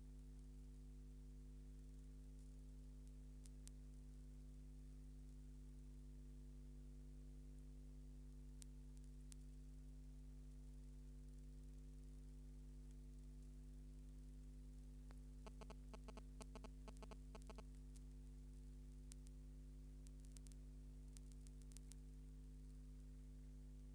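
Steady low electrical hum with scattered faint clicks, and a short run of rapid faint clicks about two-thirds of the way through. The chainsaw in the picture is not heard.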